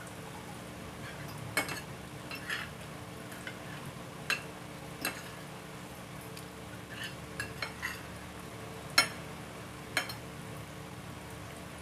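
Metal fork and spoon clinking and scraping against a dinner plate: a scattered series of short, sharp clinks, the loudest about nine seconds in, over a steady low hum.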